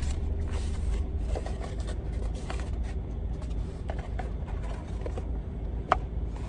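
Cardboard packaging handled during unboxing: rustling and scraping as a cardboard insert is slid out of a white box, with one sharp knock near the end, over a steady low rumble inside the car.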